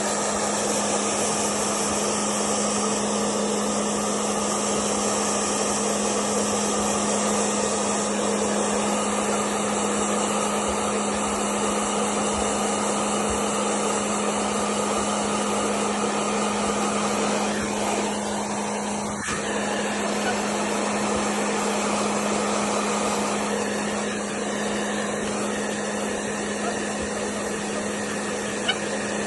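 Hair dryer running steadily: a constant rush of air over a motor hum, with a brief dip in level about eighteen seconds in.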